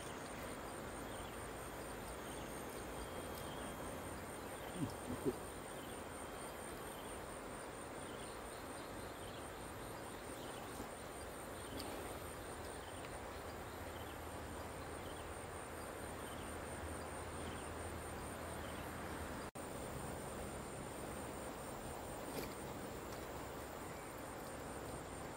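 Insects trilling steadily in a high, rapidly pulsing note over a steady outdoor background hiss, with two sharp knocks about five seconds in.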